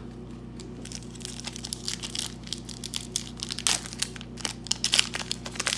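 Wrapper of a 2007-08 Upper Deck MVP hockey card pack being torn open and crinkled by hand: a run of sharp crackles that grows busier after about two seconds.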